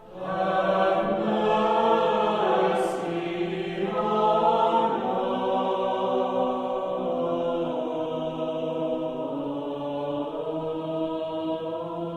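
A choir chanting slowly in long held notes over a steady low drone, playing as the programme's closing music.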